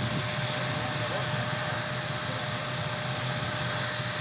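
Helicopter engine running steadily: an even rushing noise with one thin, steady tone through it.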